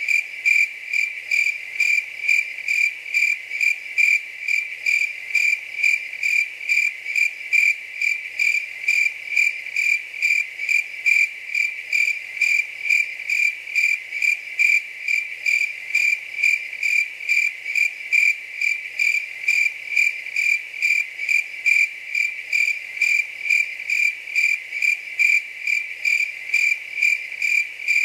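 Cricket chirping in a steady, even rhythm of about two high-pitched chirps a second, without a break.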